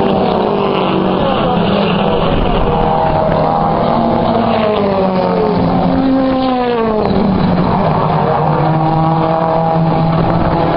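A pack of BTCC touring cars racing past one after another, their engines overlapping in a loud, continuous mix. Each engine note climbs as the car accelerates and drops as it goes by, with one sharp fall a little past halfway.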